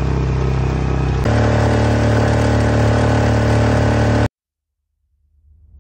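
A motor running steadily, its pitch stepping up about a second in, then cutting off suddenly about four seconds in. Music starts to fade in near the end.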